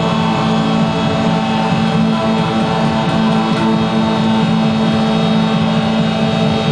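Live electronic noise music: a loud, dense drone of many held tones layered over a rough low rumble, unchanging and without breaks.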